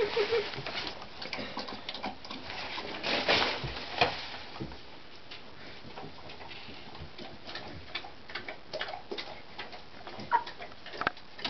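Puppy lapping water from the bottom of a bathtub: a long run of small wet clicks, with a few louder splashy bursts about three and four seconds in.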